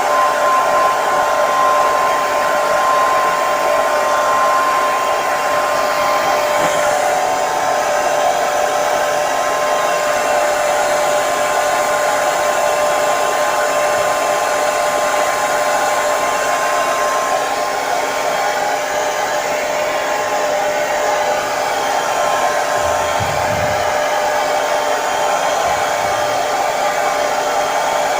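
Hair dryer running steadily: a continuous rush of blown air over a steady motor whine.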